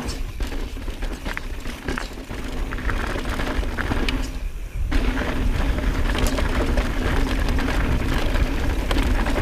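Mountain bike riding fast down a rocky, gravelly dirt trail: tyres crunching over gravel and rock with steady clicking and rattling from the bike, over a low rumble of wind on the microphone. The rattle eases briefly about four seconds in, and a steady low hum runs under it from about halfway on.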